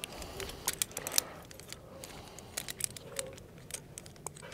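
Metal climbing hardware (carabiners and the ATC belay device on a harness) clinking and rattling in scattered light clicks as the climber shifts on the rope.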